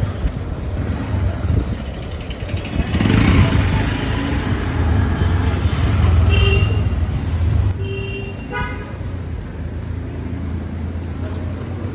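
Street traffic: a steady vehicle engine rumble, a vehicle passing about three seconds in, and short horn toots about six seconds in and again around eight to nine seconds in.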